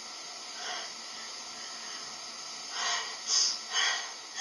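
Three short, breathy bursts from a person's nose or mouth, close together about three seconds in, over a steady background hiss.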